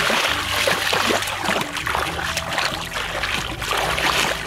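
Thick wet mud and shallow water sloshing and splashing as bare feet and hands churn through a muddy rice-paddy pool, with many small splashes.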